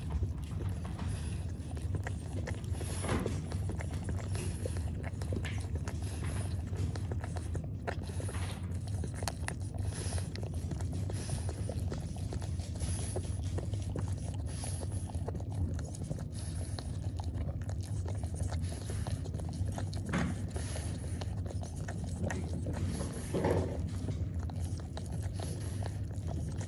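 Newborn French bulldog puppies suckling at their mother's teats: continual wet smacking and clicking of nursing mouths, over a steady low hum.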